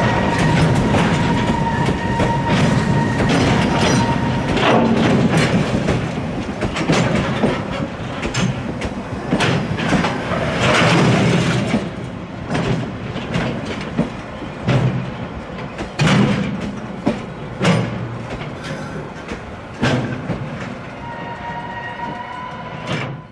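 Container flat wagons of a freight train rolling past, their wheels clattering over the rail joints in irregular knocks. A steady high squeal from the wheels sounds over the clatter for the first few seconds and again near the end.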